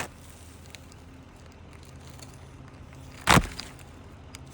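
A single short sharp knock about three seconds in, over a faint steady low hum.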